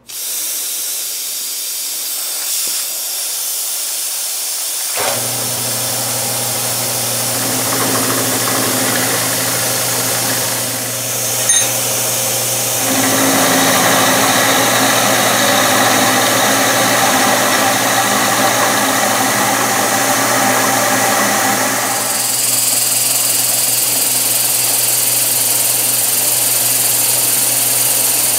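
Vertical milling machine running. After a steady hiss, its motor hum comes in suddenly about five seconds in, and it runs steadily while the end mill cuts into a round metal bar with a rough grinding noise that is loudest through the middle.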